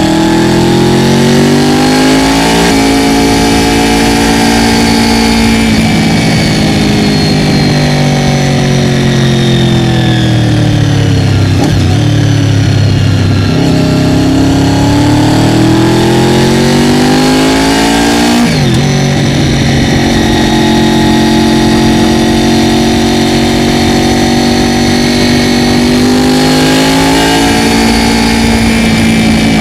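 Honda VFR800FI V4 engine with a modified exhaust, under way. The engine note climbs and falls with the throttle, dropping to a low point and climbing again, with several sudden steps in pitch at gear changes.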